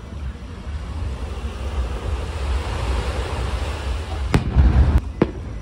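Aerial firework shells bursting: a loud bang about four seconds in, then two sharper cracks within the next second, over a steady low rumble.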